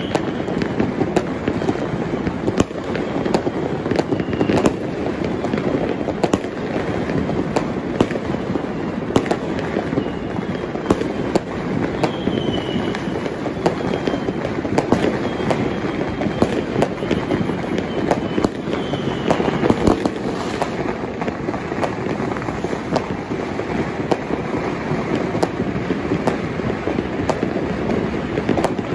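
Fireworks and firecrackers going off all around in a continuous crackling din, with frequent sharp bangs and now and then a short whistle.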